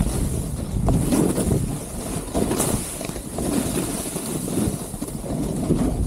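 Gnu Headspace snowboard edge scraping and sliding through soft snow while turning, the noise swelling and easing with each turn, mixed with wind buffeting the camera microphone.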